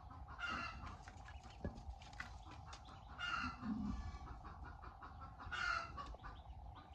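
Chickens clucking in three short bursts a couple of seconds apart, with faint scattered clicks between them.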